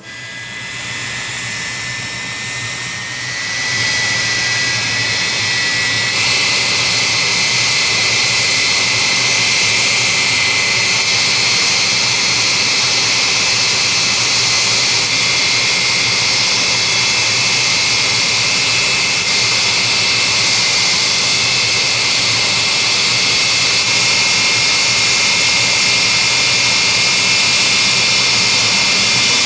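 Turbojet of an Aermacchi MB-339 PAN jet trainer running on the ground: a loud, steady jet whine with high whistling tones over a hiss. It grows louder over the first four seconds, then holds steady.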